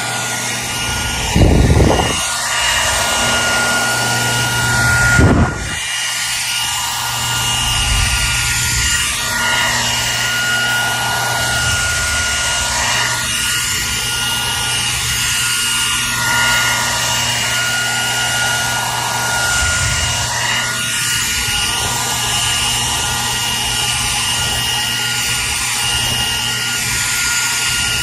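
Hair dryer running steadily: an even rushing blow of air with a high motor whine. Two brief low thumps come in the first few seconds.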